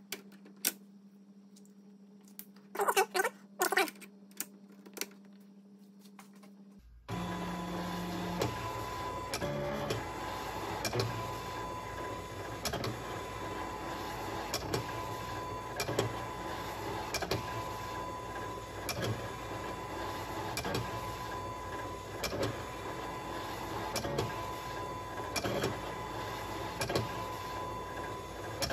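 Silhouette Cameo used as a pen plotter: a low hum and a few clicks, then about seven seconds in its motors start running steadily with a whine as it plots lines, with a click about once a second.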